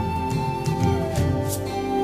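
Background music: a held melody note over a rhythmic bass line, with a steady beat.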